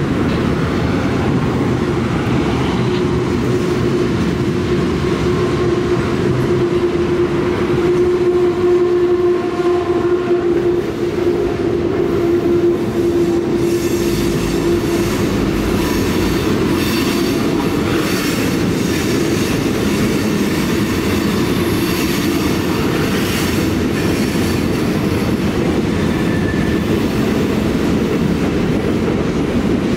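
A long freight train's cars rolling past on a curve: a steady rumble and clatter of steel wheels over the rail joints. A held hum runs through the first half, and scattered high squeaks and clanks come in the second half.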